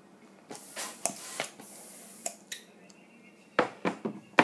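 Hand balloon pump pushing air into a long pink twisting balloon: a few loud rushes of air from about half a second to two seconds in. Several sharp clicks and knocks follow near the end as the pump and balloon are handled.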